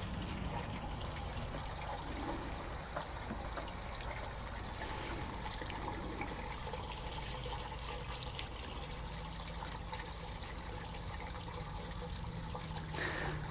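Water draining steadily out of a Hayward Extended Cycle DE pool filter through its opened drain valve, with the air valve open, flushing out the broken-up diatomaceous earth cake.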